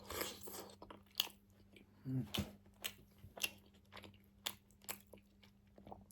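Close-miked chewing of a mouthful of cooked chicken liver, with wet mouth clicks and smacks about every half second.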